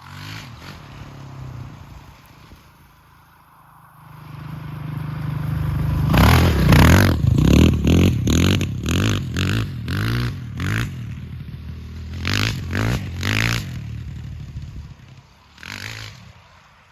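Honda TRX450 quad's four-stroke single-cylinder engine running at idle, then revved in a string of quick throttle blips from about six seconds in, with one last short blip near the end.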